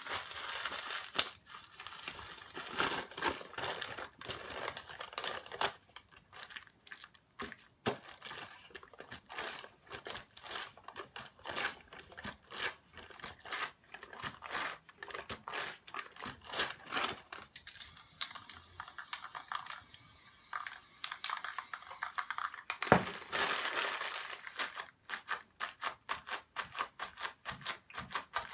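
Crumpled sheet of printed paper crinkling and rustling in the hands, with dense irregular crackles. In the later part a spray-paint can hisses steadily for about five seconds, followed by a single sharp thump and quick ticking.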